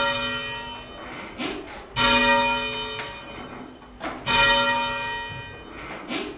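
A single tower bell, hung on a wheel for full-circle change ringing and rung by rope, strikes three times about two seconds apart. Each stroke rings on and dies away before the next.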